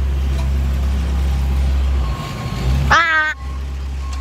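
A work vehicle's engine running with a steady low drone, with faint repeated backup-alarm beeps. About three seconds in, a short pitched, voice-like call lasting about a third of a second.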